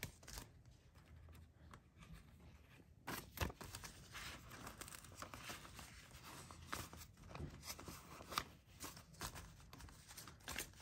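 Faint rustling and flicking of paper banknotes being handled and counted by hand, with the crinkle of a clear plastic binder pouch. Mostly quiet for about three seconds, then a run of short crisp rustles and snaps, one sharper about three and a half seconds in.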